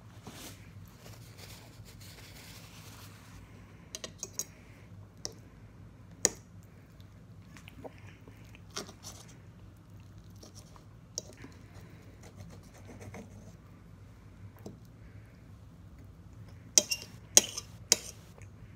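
Close-up eating sounds: chewing, with a metal fork and knife clicking and scraping against a plate now and then. There is a quick run of sharp clinks near the end, over a faint steady low hum.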